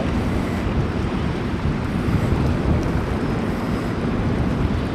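Steady rumble of a fast motor vessel speeding past, its engines and bow wash mixed with wind buffeting the microphone.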